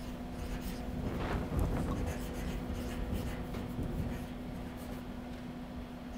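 Felt-tip marker writing on a chart-paper easel pad: short scratchy strokes, busiest in the first half, over a steady low hum.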